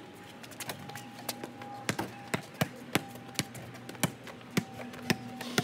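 A basketball bouncing on a concrete driveway as it is dribbled: sharp, irregular bounces about two to three times a second.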